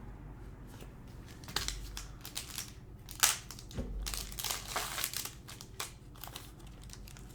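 Hockey trading cards and their plastic packaging being handled, crinkling and rustling in a string of short bursts, with one sharp click about three seconds in.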